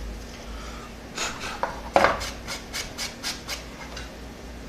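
A quick run of short, dry scratching or rubbing strokes, about four or five a second, starting about a second in and stopping a little past halfway, as hands work at the plastic part.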